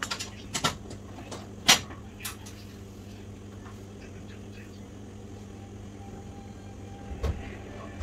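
A few short taps and knocks of fingers and a tool on a hard work board while fondant legs are pressed onto a modelled cockroach body, the loudest a little under two seconds in and another near the end, over a steady low hum.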